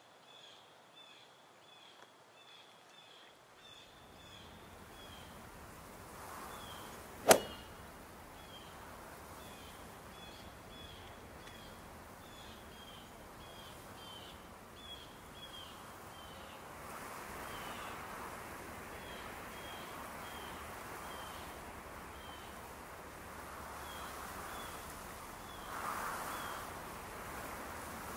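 Outdoor ambience: a bird chirping over and over, about two short falling chirps a second, over a soft wind-like hiss that swells at times. One sharp crack about seven seconds in is the loudest sound.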